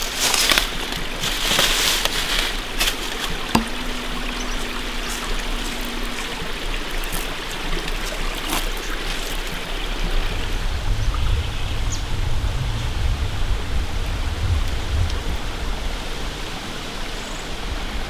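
A forest creek running steadily, with a few sharp clicks and rustles in the first few seconds and a low rumble around the middle.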